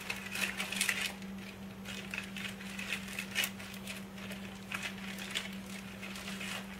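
Clear plastic zip-top bag crinkling and rustling in short, irregular bursts as it is handled and pulled out of a cardboard box, over a steady low hum.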